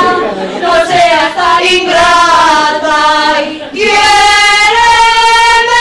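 Several women singing together, a run of short sung notes followed by one long held note from about four seconds in.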